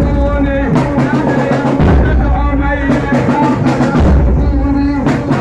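Music of a recorded Husseini chant: a pitched melody over a heavy percussion track, with deep bass-drum beats about every two seconds.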